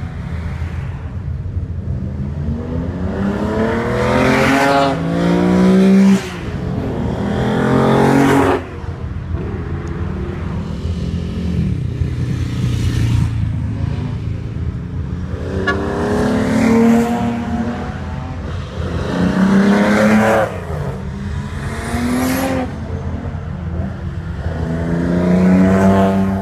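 Straight-six engine of a Nissan Skyline 'Hakosuka' on Solex carburettors revving hard under acceleration, its note climbing through each gear and dropping at each upshift, in several runs.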